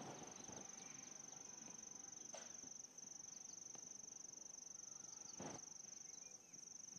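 Near silence with a steady, high, pulsing chirring of crickets. Two faint soft bumps come about two and a half and five and a half seconds in.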